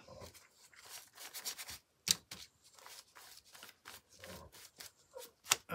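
Paintbrush brushing white paint onto watercolour paper in a run of short, scratchy strokes, with a sharp tap about two seconds in and another near the end.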